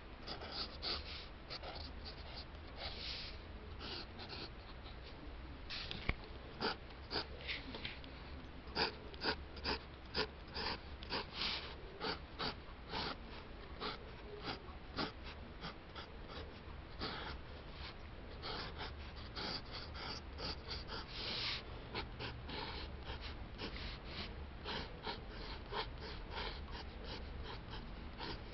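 Pencil scratching on sketchbook paper in short, quick strokes, a few a second, as lines are sketched in.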